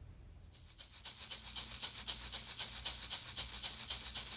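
Shamanic ocean rattle shaken in a quick, steady rhythm of about six or seven shakes a second, fading in about half a second in.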